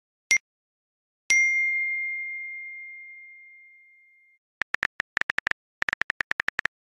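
Electronic ding sounds: a short ding, then about a second in a second ding that rings out and fades over about three seconds. From about four and a half seconds in come rapid clusters of very short beeps.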